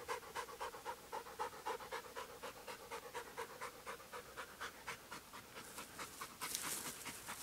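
Hamiltonstøver hound panting rapidly, about four to five breaths a second, winded from running the hare. A short burst of rustling noise comes near the end.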